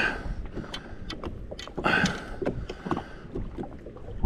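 Low wind and water rumble with many small sharp clicks and knocks, and a brief louder rustle about two seconds in, as fishing tackle is handled while a hook is rebaited.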